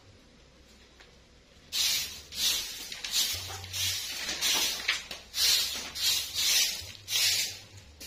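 A broom sweeping a floor, starting about two seconds in: a run of about ten quick, hissing swishes, roughly one every half second.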